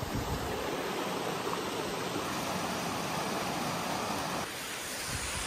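Mountain stream running over bare rock slabs in small cascades: a steady rush of water, dropping slightly in level and changing in tone about four and a half seconds in.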